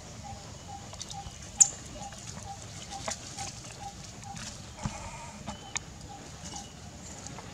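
An animal's soft call repeated steadily about two and a half times a second, with a few sharp clicks or snaps over it, the loudest about a second and a half in.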